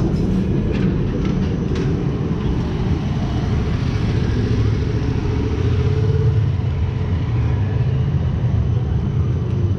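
A tram in motion: a steady low rumble with a couple of light clicks near the start.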